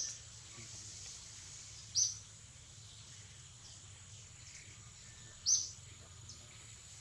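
Short, high bird chirps, three of them a few seconds apart, over a steady high hiss of outdoor ambience.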